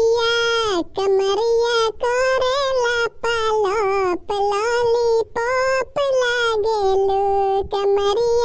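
A high-pitched voice singing a melody without accompaniment, in a string of short phrases, each held mostly on a steady note, with brief breaks between them.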